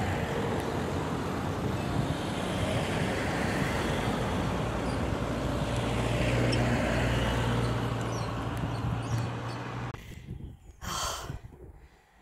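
Motor vehicle driving along at road speed: steady road and wind noise with a low engine hum, loudest a little past the middle. About ten seconds in it stops abruptly and gives way to much quieter open-air sound with one short rush of noise.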